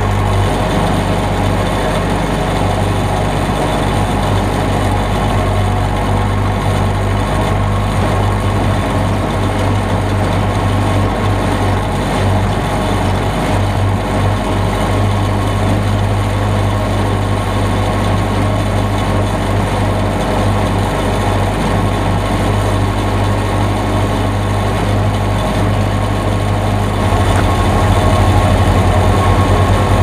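Diesel engine of a backhoe running steadily as the machine is driven, heard up close from the hood next to the exhaust stack. About 27 seconds in the low rumble changes and gets a little louder.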